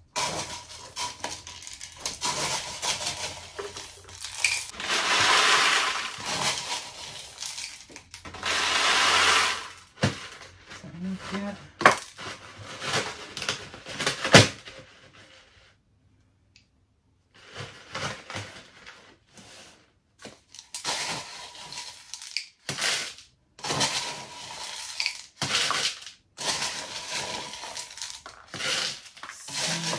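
Pon, a granular mineral substrate, being scooped with a plastic scoop and poured into a clear plastic pot. The small stones rattle and clatter against the plastic, with two longer pours early on, a few sharp knocks, and a brief pause about halfway through.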